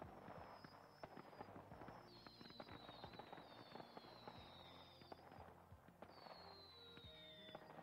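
Casanova firework cake firing, heard faintly off an old videotape: dense crackling, with several long whistles that overlap and slowly fall in pitch. A steady low tape hum sits underneath.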